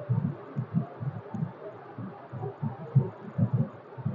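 Microphone handling noise: irregular low thumps and bumps, several a second, as the recording camera is checked.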